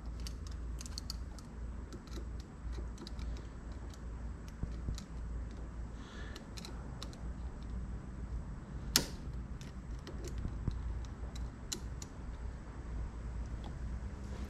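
Scattered small clicks and creaks as a rubber CV boot is forced by hand over the groove of a drive axle's CV joint, with one sharper click about nine seconds in.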